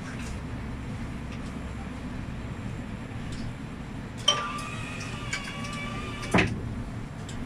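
Tram standing at a stop with a steady low hum; about four seconds in, a click sets off a steady electronic warning tone of several pitches, typical of the door-closing signal, which lasts about two seconds and ends with a thud as the doors shut.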